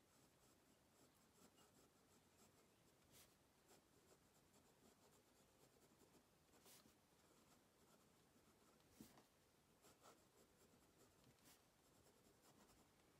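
Faint scratching of a Pilot Custom 823 fountain pen's fine gold nib moving across Rhodia notepad paper as words are written, with a few soft ticks.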